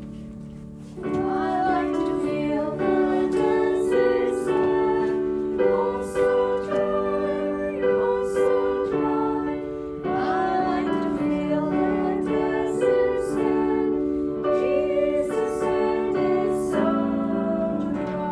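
A children's song sung with keyboard accompaniment. Held chords sound throughout, and the singing voice comes in about a second in.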